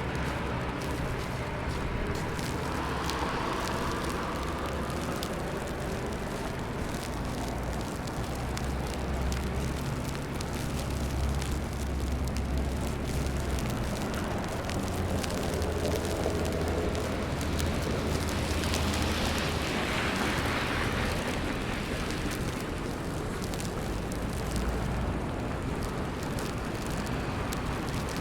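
City street ambience in a snowstorm: a steady low rumble of traffic under an even hiss of snow and wet streets, with a louder swell of hiss about two-thirds of the way through, like a vehicle passing.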